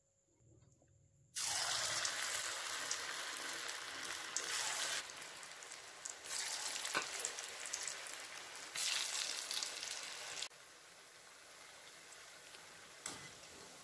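Bottle-gourd pakoda batter dropped by hand into hot oil in a kadai, setting off a sudden sizzle about a second in. The oil bubbles and sizzles around the frying fritters, swelling as more batter goes in, then settles to a quieter steady sizzle near the end.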